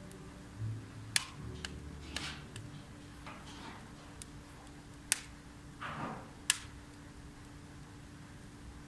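Wood fire burning in a wood-burning fireplace, crackling with scattered sharp pops, three of them loud, and a few short hisses, one falling in pitch about six seconds in.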